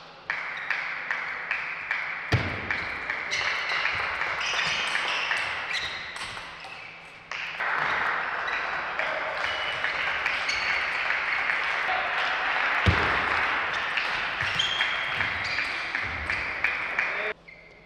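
Table tennis ball struck back and forth by the rackets and bouncing on the table in quick, sharp pings through two rallies, over a steady hiss of hall noise.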